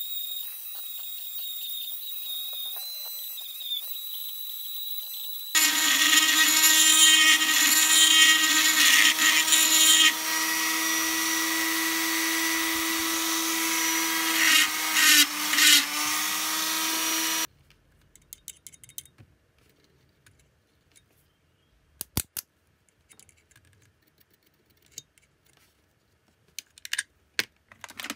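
Dremel rotary tool with a pink grinding stone running against the metal horn body: lighter at first, then much louder and steadier with grinding noise from about six seconds in, until it stops abruptly at about seventeen seconds. After that come only a few faint clicks.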